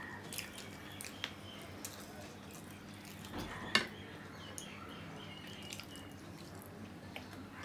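Close-up eating sounds of people eating rice and curry by hand: wet mouth and lip smacks and small soft clicks. One sharper click comes a little past halfway.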